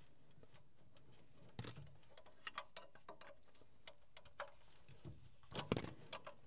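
Scattered small metallic clicks and taps of a ring spanner on the injector-line nuts of a Perkins 6354 diesel, with the engine stopped, as the lines are cracked to bleed air from the fuel system. The loudest knock comes about five and a half seconds in.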